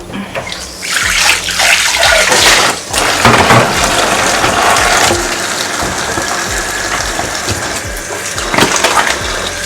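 Kitchen tap running into a sink, water splashing as peppers are deseeded and rinsed under it.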